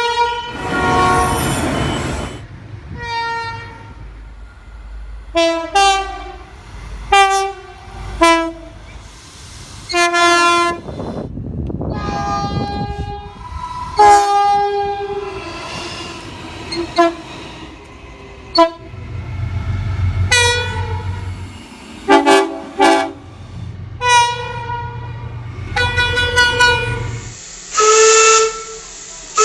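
Train horns sounding in a long run of short and held blasts, several sounding two or more notes at once, with the rumble of passing trains between them.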